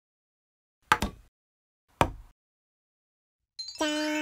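Stop-motion animation sound effects: two short sharp clicks about a second apart, then near the end a brief held electronic tone with several overtones, a cartoon-style cue.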